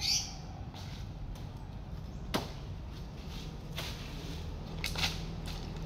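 A few sharp knocks at irregular intervals, around four in all, over a faint low steady hum.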